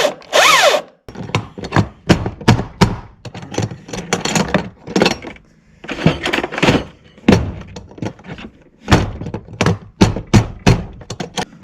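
Husqvarna T540i XP battery chainsaw's electric motor spins up briefly and winds down in the first second, running again after its trigger assembly was cleaned. Then comes a long run of hard knocks and clatter of tools and parts being put into a toolbox.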